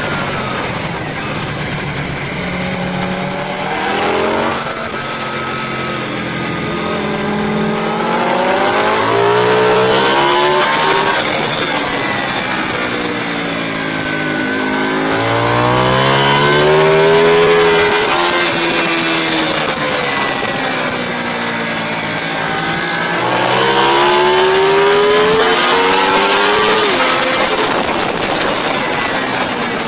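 Racing motorcycle engines at high revs, heard from a camera bike on track: the pitch climbs hard under acceleration and falls away on the overrun into corners, several times over.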